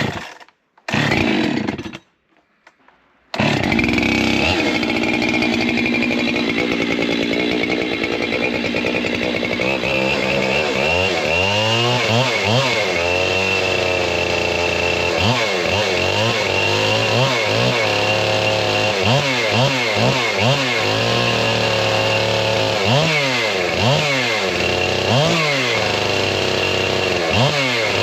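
Large chainsaw with a 32-inch bar and full-skip chain: a few short bursts, then running continuously from about three seconds in. From about ten seconds in, the engine pitch repeatedly dips and climbs back, typical of the saw pulling down under load in a cut and recovering.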